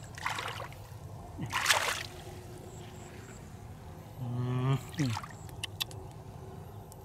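Shallow water splashing as hands grab at fish, in two short splashes, the louder about a second and a half in. About four seconds in, a man gives a brief hummed voice sound that falls in pitch.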